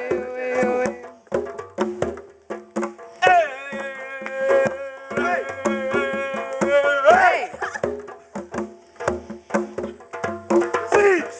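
Music with a steady percussive beat, with a long held, wavering melodic note in the middle that bends in pitch as it ends.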